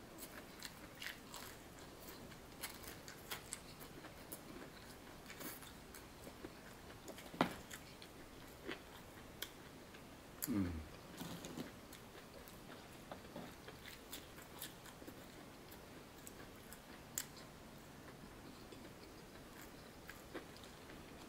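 Close-miked chewing of crispy fried chicken: soft crunches and wet mouth clicks scattered irregularly, with a sharper crunch about seven seconds in. A little after ten seconds comes a brief low vocal sound that falls in pitch.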